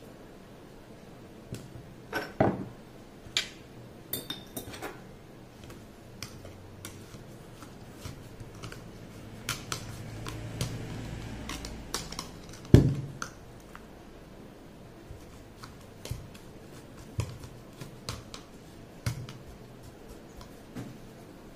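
Metal spoon clinking and scraping in a plastic jar while cut red chillies and dry spice mix are stirred, with scattered irregular taps and one louder knock about 13 seconds in.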